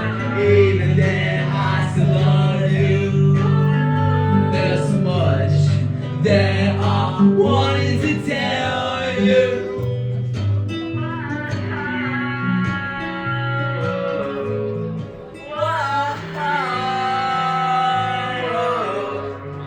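Music: a guitar-led backing track with a male voice singing over it.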